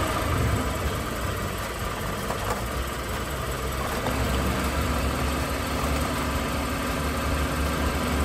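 Vehicle engine sound effect idling steadily with a low rumble, laid over a non-motorised toy car transporter as it is pushed along.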